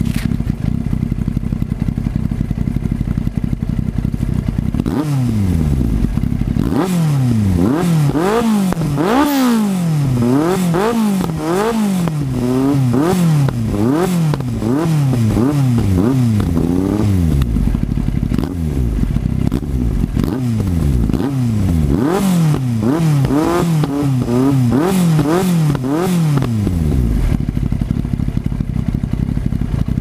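Yamaha FZS1000 Fazer's inline-four engine through a Mivv GP exhaust, idling and then revved repeatedly in quick throttle blips while the bike stands still. The revving runs for about twelve seconds, drops back to idle for a few seconds, then comes again in a second run of blips before settling to idle near the end.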